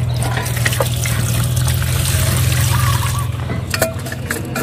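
An engine running steadily at idle, a low even hum, with a few light metallic clicks and taps in the last second or so.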